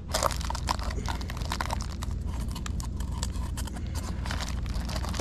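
Irregular crackling and clicking of insulation material being handled and pressed into place, over a steady low hum.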